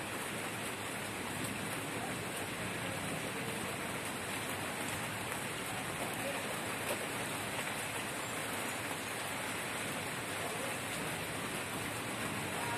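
Steady rain falling: an even wash of noise with scattered small drop ticks, unbroken throughout.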